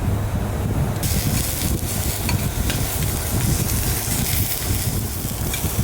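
Food sizzling in a hot pan, the frying hiss starting abruptly about a second in, over a steady low rumble.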